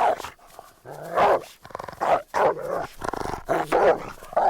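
A cartoon dog barking repeatedly: about six short barks, some growly, spaced roughly half a second to a second apart.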